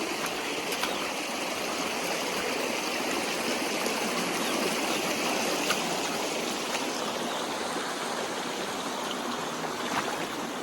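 Valley stream running steadily, with a couple of faint clicks.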